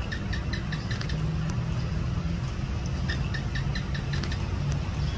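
House gecko (Hemidactylus) calling: two runs of quick, evenly spaced chirps, about seven a second, one at the start and another about three seconds in. A steady low hum runs underneath.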